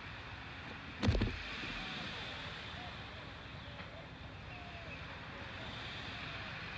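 Steady wind noise on the microphone, with one short thump about a second in.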